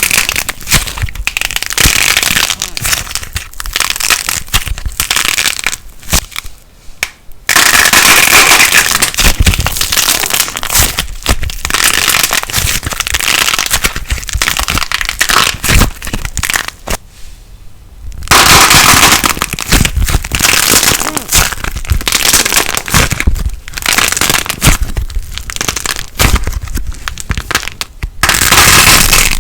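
Light plasticine being squeezed and kneaded close to the microphone, giving off dense crackling and crunching, with two brief pauses about six and seventeen seconds in.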